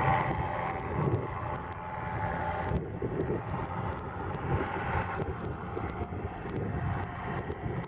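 Home-built hovercraft running across open water, its engine and fan droning steadily, with wind buffeting the microphone. The higher part of the drone weakens about three seconds in.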